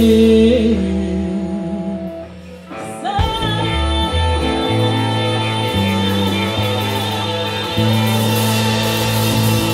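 Live band music: bass guitar, drums and guitars with a woman singing. About two seconds in the music drops away briefly, and just after three seconds a new passage starts with a steady bass line.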